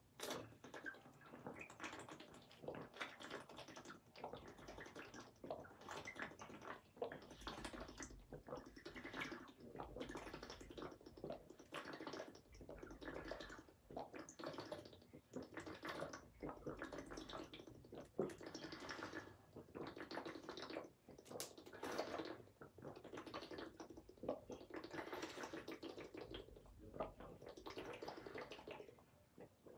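A person chugging water from a plastic water bottle: a faint, steady run of gulps and swallows, about one or two a second, broken by a few brief pauses.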